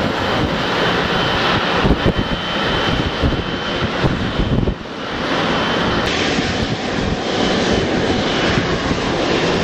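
Jet airliner engines at taxi power: a Boeing 777's twin engines run steadily with a thin high whine, then after a cut about five seconds in an Airbus A380 taxiing gives a steady rumble.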